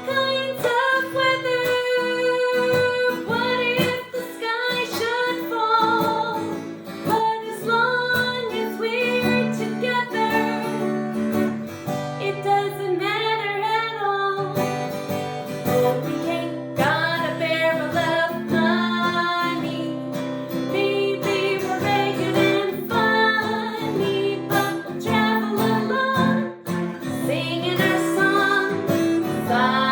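A woman singing a melody to strummed acoustic guitar accompaniment.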